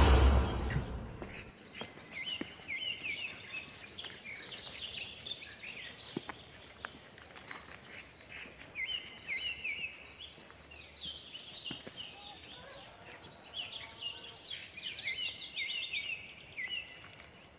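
Several birds chirping in clusters of short, repeated notes, with a thin high trill now and then. A whoosh fades out in the first second.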